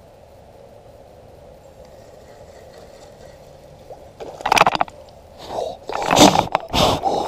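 Spinning reel cranked to bring in line, a faint steady whir. From about four seconds in comes a run of loud scraping and splashing noises as a small bass strikes the lure and is pulled in.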